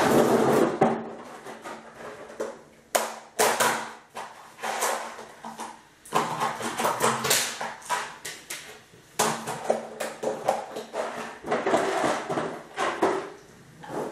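Rummaging in a clear plastic storage tub and handling a small packet: an irregular run of plastic rustles and crinkles with a few sharp knocks.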